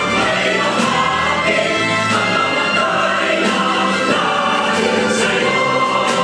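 Choral music: a choir singing over instrumental accompaniment at a steady level.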